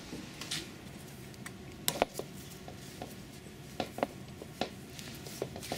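Light handling noise: a few scattered clicks and taps as hands work on a stainless steel pipe section, wrapping white thread-seal tape onto its threads, over faint room hiss.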